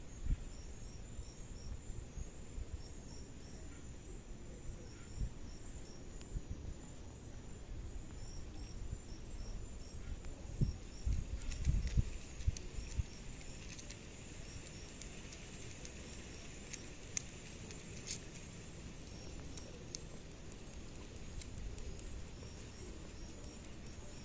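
Forest ambience with a steady high-pitched insect drone, and short high chirps repeating in little runs of three or four. Low thumps and rumble come and go, strongest around the middle.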